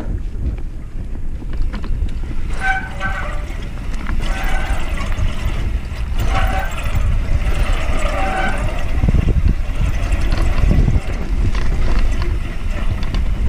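Mountain bike riding down a dirt trail: heavy wind rumble on the camera microphone and tyre noise over the ground, with the disc brakes squealing in short repeated tones from about two seconds in until about nine seconds in. The rider calls his brakes burnt, and the squeal fits overheated pads.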